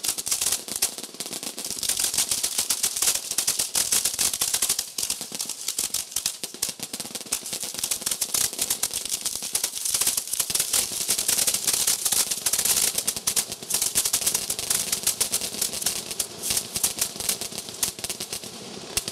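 Fireworks finale firing at close range: racks of tubes and cakes going off in rapid succession, a dense, unbroken crackle of pops and launches.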